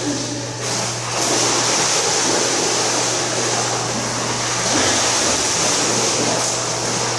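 Steady rush of churning pool water, with a low steady hum underneath and splashing as a dog wades through the water.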